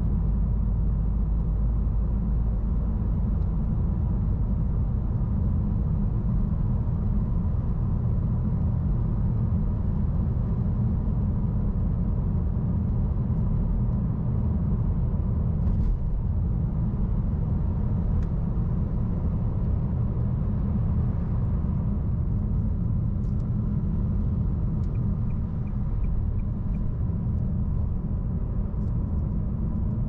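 Steady low rumble of a car driving at speed, heard from inside the cabin: tyre and engine noise from the road. A short run of faint, evenly spaced ticks comes near the end.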